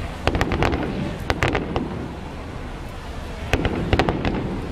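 Fireworks going off in three quick clusters of sharp cracks and bangs, a little over a second apart, over a steady low rumble of explosions.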